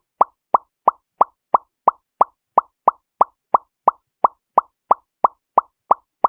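Repeated cartoon "plop" sound effect, about three a second, each pop identical, with dead silence between.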